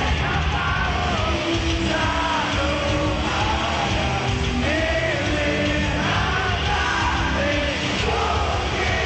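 A rock band playing live with sung and shouted vocals, loud and continuous.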